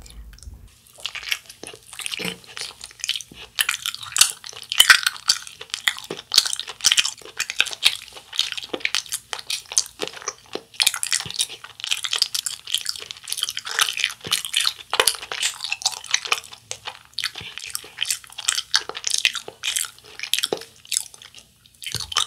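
Close-miked chewing of a Japanese wagashi sweet: a continuous run of small mouth clicks and smacks as the mouthful is worked.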